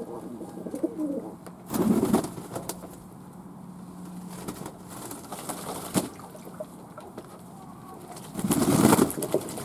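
Fantail doves cooing, with two louder low bursts about two seconds in and again near the end.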